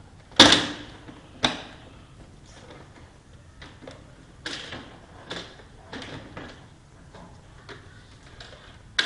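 Plastic casing of an Epson L200 printer being pried off: a series of sharp plastic snaps and knocks as its clips let go. The loudest comes about half a second in and another a second later, then lighter clicks, with a loud snap again at the very end.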